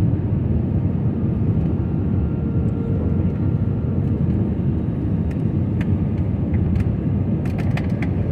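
Steady low rumble of an airliner's jet engines and airflow heard inside the passenger cabin, with a faint steady whine; a few light clicks or rattles near the end.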